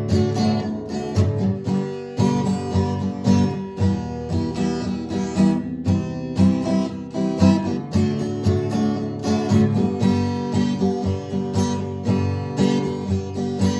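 An acoustic guitar strummed in a steady rhythm, its chords ringing on, with no singing.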